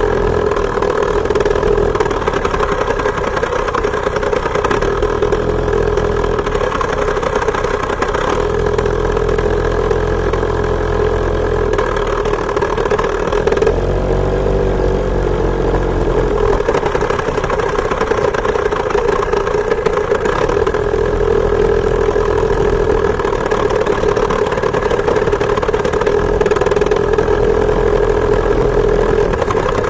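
Two-stroke chainsaw engine driving a homemade moped, running steadily under way. Its pitch rises and falls briefly about halfway through.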